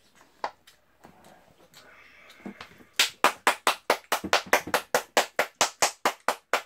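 Rapid hand clapping: a fast, even run of about twenty sharp claps, some five or six a second, starting about three seconds in.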